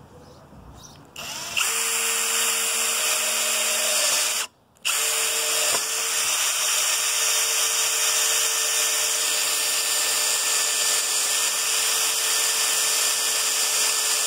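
Cordless drill boring a rivet hole through a plastic track into a folded steel rib. It starts about a second in, stops for a moment about four and a half seconds in, then runs steadily on.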